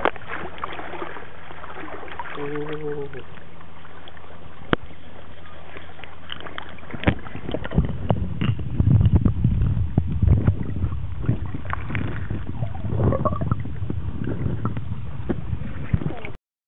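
Lake water sloshing and splashing around a camera held at and under the surface while a Labrador retriever paddles, with irregular bumps and knocks, starting about seven seconds in. Before that there is only a steady low hum.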